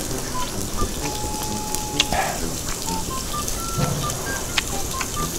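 Eel sizzling on a tabletop grill: a steady hiss with frequent small crackling pops.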